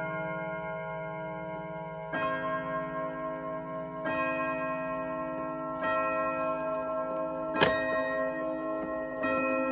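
Wooden mantel clock striking twelve on its gong, one slow stroke about every two seconds, each ringing on over the fast ticking of the movement. A sharp knock sounds about three-quarters of the way through.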